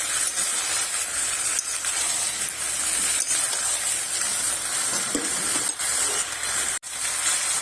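Potatoes, pointed gourd and ridge gourd sizzling in a pan of hot spiced oil as they are stirred, with a steady frying hiss and light, scattered spatula scrapes. The sound cuts out for an instant near the end.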